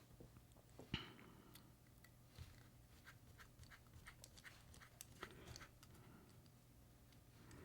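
Near silence with a handful of faint, scattered clicks and light taps, the clearest about a second in: small metal knife parts being handled and fitted during reassembly of a folding knife.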